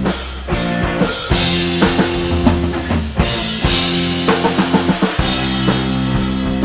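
Rock band playing a drum kit under sustained chords. The band stops briefly a few times and comes straight back in.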